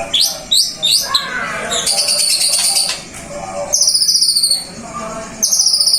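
White-rumped shama (murai batu) singing a loud, varied song of quick sweeping whistles and fast high trills, with lower warbling notes between phrases.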